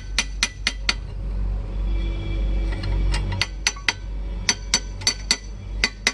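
Hammer tapping the steel bearing cap and adjuster of a Tata truck differential during crown wheel and pinion fitting: sharp ringing metal-on-metal strikes in four quick bursts of four or five, about four a second.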